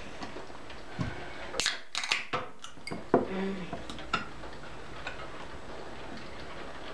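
Fingertip picking at the pull-tab of an aluminium drink can: a scatter of small, sharp metallic clicks, most of them between about one and four seconds in.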